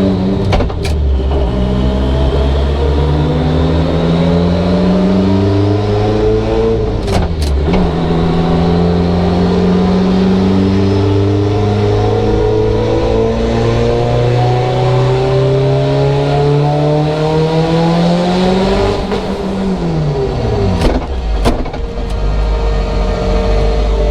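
Turbocharged Mitsubishi Evo 8 with a built 2.0-litre 4G63 engine and Garrett GTX3584RS turbo making a dyno pull: engine speed climbs steadily, with a brief break about seven seconds in as the sequential dog box shifts, then climbs again until the driver lets off about nineteen seconds in, followed by a couple of sharp cracks. On this run the boost overshoots to about 40 psi, which the tuner blames on extra springs in the wastegate.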